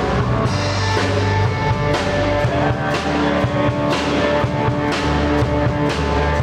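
A band playing live: drum kit keeping a steady beat of about two hits a second under sustained guitar and bass chords.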